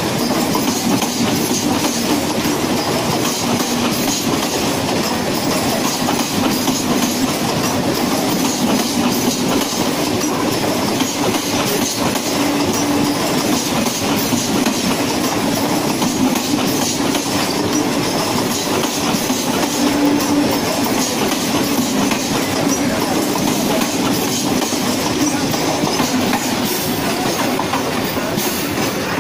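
Mumbai suburban electric local train (Central Railway EMU) running past, its wheels going steadily over the rails.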